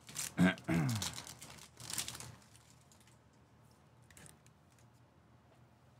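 Foil wrapper of a Topps Chrome baseball card pack crinkling as it is torn open and the cards are pulled out, with a brief voiced hum under a second in. It fades to faint handling after about two and a half seconds.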